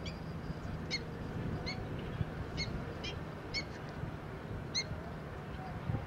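Black-winged stilt calling: five short, high, sharp notes about a second apart, over a low steady background rumble.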